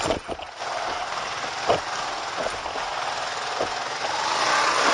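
Trail motorcycle engine running at low speed over rough ground, with a few sharp knocks from the bike jolting over bumps; the engine revs up near the end.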